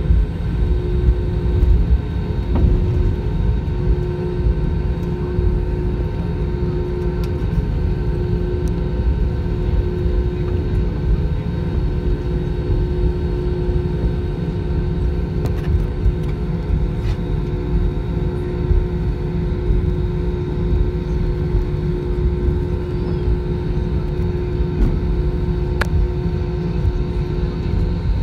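Airbus A320 taxiing, heard from inside the cabin over the wing: the engines at taxi power give a steady low rumble with a steady hum running through it, and a few faint clicks.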